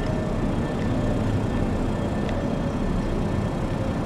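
Diesel locomotive idling in a rail yard: a steady low rumble with faint steady whines above it and a mid tone that sinks slowly.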